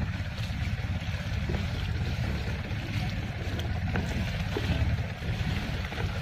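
A fishing boat's engine running steadily at idle, a low, rapidly pulsing rumble, with wind on the microphone.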